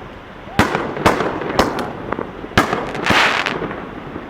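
Aerial firework shells going off: a run of sharp bangs about half a second apart, then a burst of hissing crackle about three seconds in. These are canister shells fired from mortar tubes.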